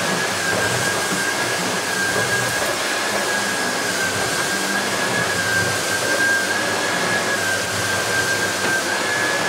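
Miele Revolution 500 S556 cylinder vacuum cleaner running at high power while its electric powerhead is pushed back and forth over carpet: a steady rush of air with a high, steady whine.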